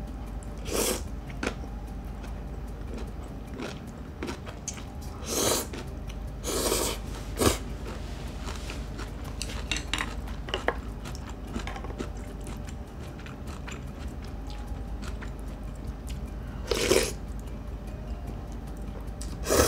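Close-miked eating of instant ramen with dumplings: several short noodle slurps, with wet chewing between them. Near the end a ladle scrapes and clinks against the ceramic bowl while scooping broth.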